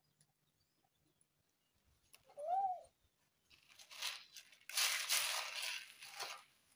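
A brief high call that rises and falls, then about three seconds of loud crackling and rustling from the plastic-bag and paper kindling in a wood-burning cookstove as it is lit and flares up.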